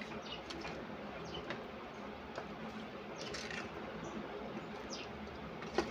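Plastic spoon stirring raw chicken pieces in a yogurt marinade in an enamel bowl: quiet wet squelching with irregular small scrapes and clicks against the bowl, and a sharper click near the end.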